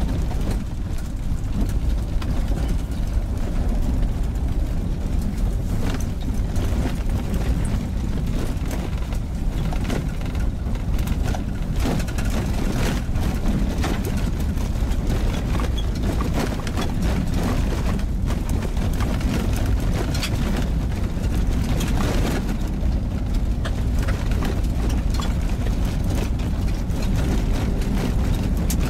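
Car driving on an unpaved gravel road: a steady low rumble of engine and tyres, with frequent short knocks and ticks from the gravel and bumps under the wheels.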